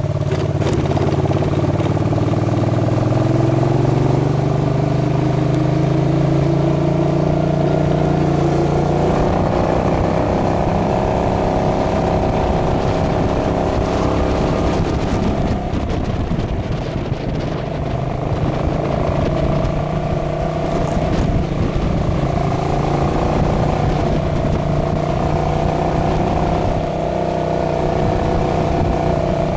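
Motorcycle engine running while riding. Its pitch rises and falls slowly as the bike speeds up and slows down, over steady road and wind noise.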